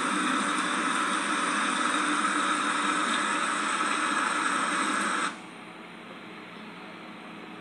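Steady hiss of falling rain. It cuts off abruptly about five seconds in, leaving a fainter, duller hiss.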